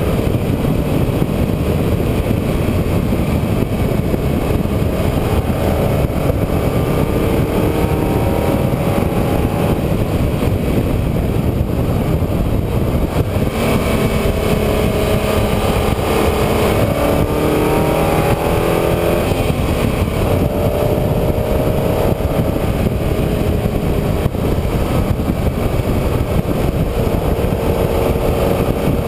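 Vehicle engine heard on board while driving a twisting road, its pitch climbing and dropping again and again as it accelerates, shifts and slows for bends. Over it runs a loud, steady rush of wind and road noise.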